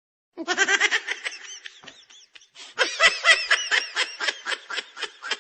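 A person laughing in quick, repeated bursts. One fit of laughter starts about half a second in and fades away, and a second, louder fit starts about halfway through.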